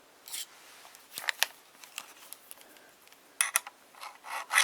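A few light clicks and scrapes of handling, then, from a little past halfway, a small round file rasping back and forth in a slot of a metal Picatinny rail, about four quick strokes a second.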